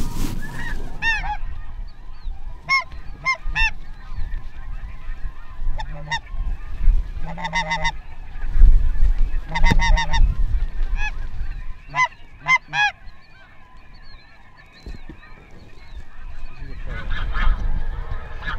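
Snow geese calling: many short, high yelping honks overlapping in clusters, with a lull about two-thirds of the way through.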